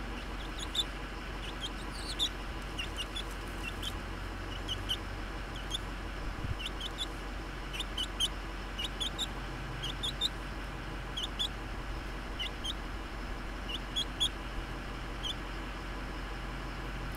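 Young chicken, about two months old, peeping softly while dust bathing: short high peeps, often in twos or threes, every second or so. A steady low hum lies underneath.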